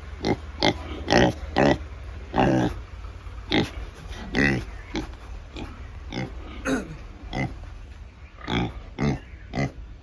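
Large White Yorkshire pig grunting: a string of short grunts, roughly one or two a second, with a brief pause near the end.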